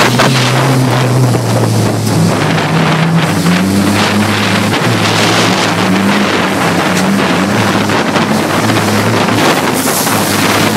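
Banger racing car's engine running hard, heard from inside the stripped cabin, its revs climbing and dropping several times, over loud wind and rattling noise.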